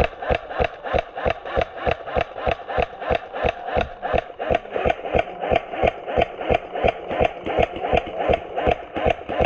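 A steady pulsing beat, about four sharp ticks a second, over a held mid-pitched tone. It runs evenly without a break, like a dubbed-in suspense track.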